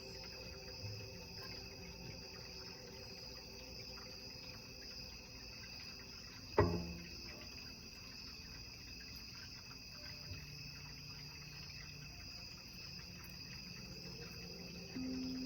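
Crickets chirping steadily. About six and a half seconds in there is a single sharp knock with a brief ring, the loudest sound here. Near the end a low, steady tone begins: a quartz crystal singing bowl starting to sing.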